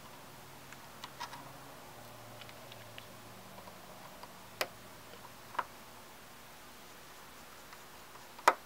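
Small metal repair tools clicking against the small parts of an iPhone 5c as the home button's screws are taken out: a few scattered sharp clicks, the loudest near the end, over a faint steady hiss.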